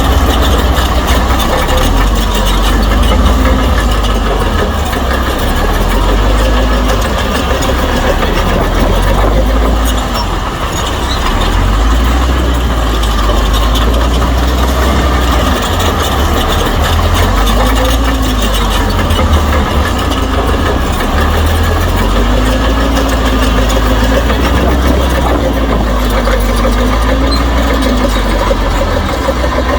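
Shantui bulldozer's diesel engine working under load, with a steady low rumble. Its pitch rises and falls again and again as the engine revs up and eases off.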